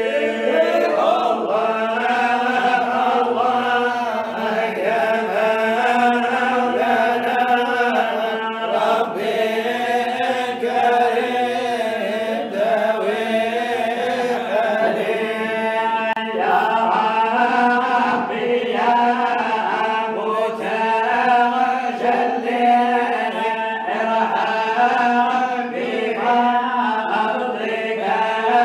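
Unaccompanied Sufi samaa: a male voice chanting a devotional qasida into a microphone, with melismatic lines rising and falling over a steady drone note. No instruments.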